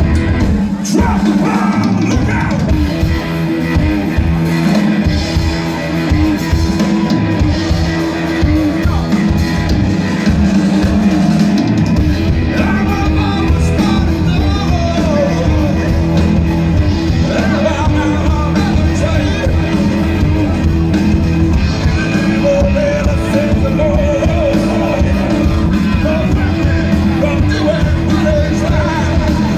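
Live rock band playing: electric guitars, bass and drum kit with a male singer, the sound growing fuller about twelve seconds in.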